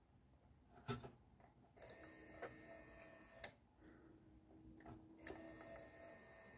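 Small N20 gearmotor of a cam-operated model railway point motor, a 12-volt, 60 rpm motor run slowly on a single 1.5-volt AA battery, whirring faintly in short spells as it drives the cam and throws the point. Sharp clicks mark where each spell starts and stops.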